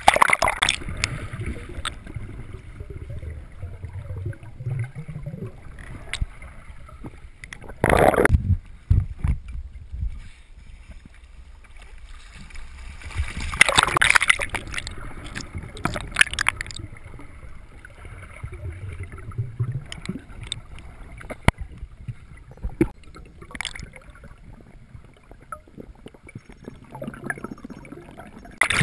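Seawater sloshing and gurgling around a GoPro held below the surface beside a kayak, muffled by the waterproof housing, with a low rumble. It is broken by a few loud splashes, the biggest about 8 and 14 seconds in.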